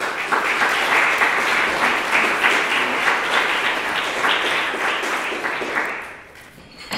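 Audience applauding, a dense, steady clapping that dies away about six seconds in.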